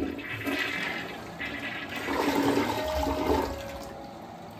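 Toilet flushing, set off by a touchless auto-flusher on the tank's top button. Water rushes through the bowl for about three and a half seconds, then eases to a quieter steady rush.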